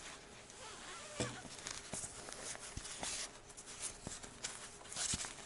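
Handling noise of a helmet cheek pad's fabric cover and foam rustling and rubbing as a helmet-communicator speaker is worked into it, with a few short clicks scattered through.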